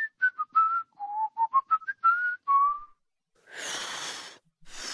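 A man whistles a short tune of about a dozen quick notes. He is followed by a child blowing twice through pursed lips: breathy rushes of air with no note, a failed attempt to whistle.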